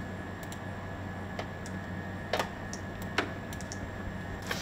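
About five scattered clicks from computer work at a desk, two of them in quick succession about halfway through, over a steady low electrical hum.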